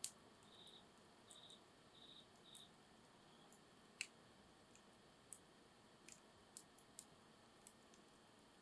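Burning firewood crackling faintly, with scattered sharp pops, the loudest right at the start and another about four seconds in. Four short high chirps sound in the first three seconds.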